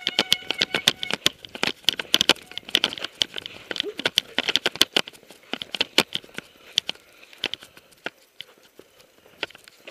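Mountain bike rattling over a rough dirt trail: a dense run of sharp, irregular clicks and knocks that thins out after about seven seconds. A high whine fades out about a second in.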